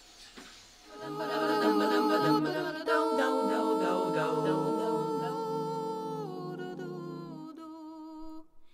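Unaccompanied voices singing long held notes in harmony, starting about a second in and fading out near the end.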